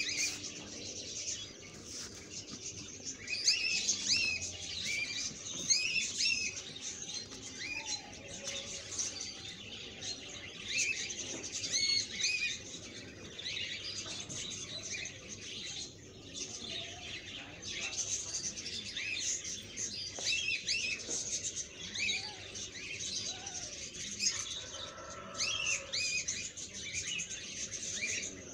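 Paneer cubes shallow-frying in oil in a nonstick pan, giving a steady sizzle. Small birds chirp repeatedly over it, in short quick calls.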